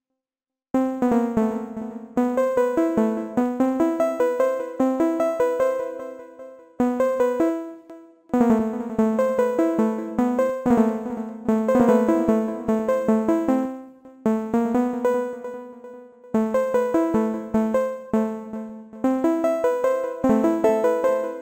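Software synthesizer (Serum) playing a fast arpeggio of short plucked notes that each fade quickly. Playback starts about a second in and breaks off and restarts several times.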